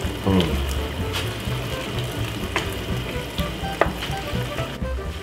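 Chicken stir-fry in sauce sizzling in a frying pan as a wooden spatula stirs it, with a few sharp scrapes against the pan, over background music.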